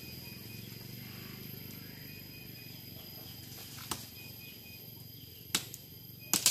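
Woody cassava stems cracking sharply as they are cut and broken: a single crack about four seconds in, two more around five and a half seconds, and the loudest near the end.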